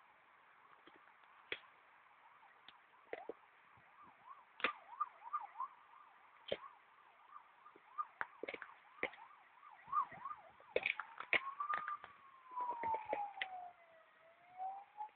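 American Staffordshire Terrier gnawing a log, with irregular sharp cracks and crunches of wood under its teeth. From about ten seconds in, a faint siren wails behind it, slowly rising and falling in pitch.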